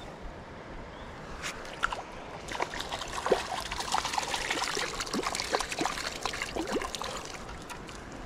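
A hooked trout splashing repeatedly at the surface of a small stream as it is pulled in toward the bank, busiest from about two and a half seconds in until about seven seconds, over the steady trickle of the stream.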